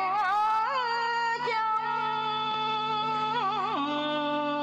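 Vietnamese ballad sung to a karaoke backing track: a singer draws out long held notes with small wavering turns on each drawn-out syllable, and the accompaniment moves to a new low sustained note near the end.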